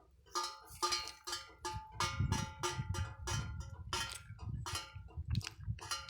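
Metal being struck over and over, about three uneven clanks a second, each ringing with a bell-like tone.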